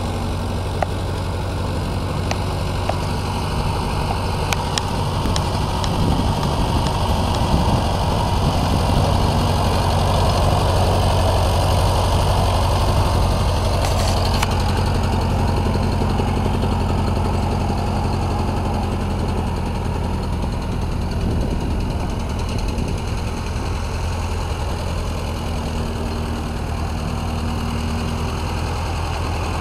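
1949 Ford 8N tractor's four-cylinder flathead engine running steadily at low speed as the tractor is driven along, growing louder from about six seconds in as it passes close and easing off again after the middle.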